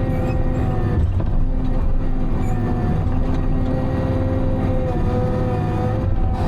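Diesel engine of a Timberjack 608 tracked forestry machine running steadily under load, heard from inside its cab, with a steady whine above the low drone.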